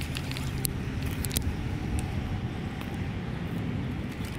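Steady low outdoor rumble with scattered small, sharp clicks and ticks as a baitcasting reel and a soft plastic frog lure are handled and cleared of weed.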